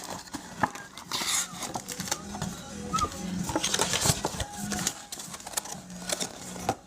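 Hands opening and handling a trading-card mega box and its packs: bursts of tearing and crinkling wrapper with sharp clicks of card stock.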